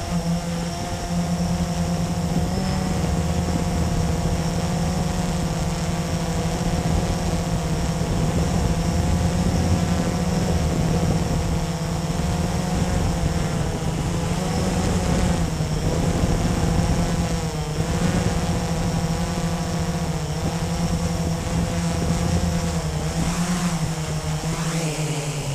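Blade 350QX quadcopter's four brushless motors and propellers whirring in flight, heard up close from the GoPro mounted on the airframe. It is a steady, loud hum whose pitch wavers slightly up and down as the throttle changes.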